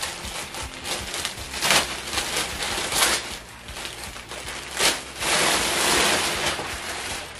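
Thin plastic delivery bag rustling and crinkling as it is handled and shaken out, in irregular crackles with a longer stretch of rustling about five seconds in.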